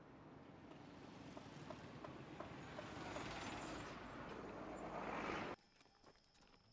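Road traffic passing close by, engine and tyre noise swelling, with a passing vehicle's rush growing louder near the end. The sound then cuts off abruptly to a faint, quiet outdoor background.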